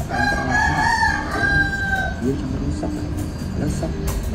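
A rooster crowing once, a single drawn-out call of about two seconds that falls slightly at the end, with faint talk underneath.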